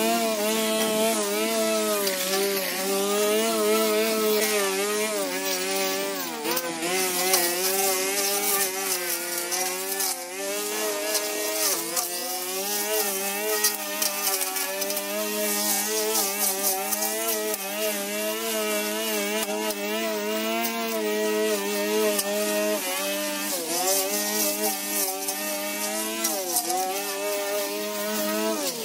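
Petrol brush cutter running at high speed and cutting tall grass, its engine pitch dipping briefly several times as it works into thick growth.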